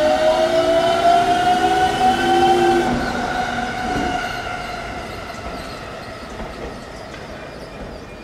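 GTO-VVVF traction inverter of a JR East 209 series 1000-subseries electric train whining as the train accelerates: several tones rise in pitch together, then level off about three seconds in. The sound fades steadily as the train draws away.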